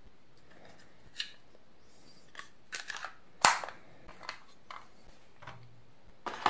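Sharp plastic clicks from a Logitech B170 wireless mouse as its USB receiver is pressed into the storage slot and the battery cover is snapped shut, the loudest snap about halfway through, with a few lighter taps around it.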